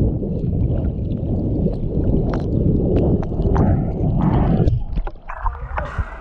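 Muffled underwater rumble of water moving around an action camera as a snorkeller swims, with scattered sharp clicks. The rumble drops away about three-quarters of the way in.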